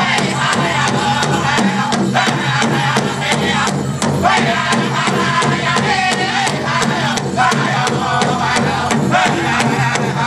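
Powwow drum and singers: a steady, fast drumbeat with high-pitched chanting in unison over it.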